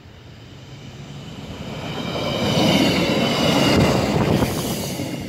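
Red-and-white diesel railcar passing over a level crossing at speed: it grows louder as it approaches, then rumbles past with a thin high squeal from the wheels on the rails.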